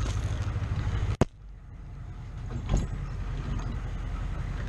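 Humvee engine running with a steady low rumble. About a second in there is a sharp click, after which the sound drops away briefly and builds back. A second, duller knock comes a little before the middle.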